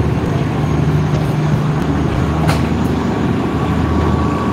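Darjeeling Himalayan Railway toy train running, a steady low rumble heard from aboard, with a faint steady tone above it. A single brief click comes about two and a half seconds in.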